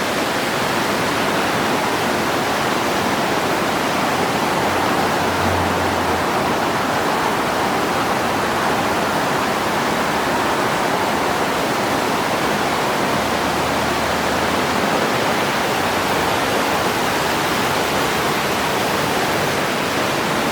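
Clear Creek, a mountain river, rushing steadily.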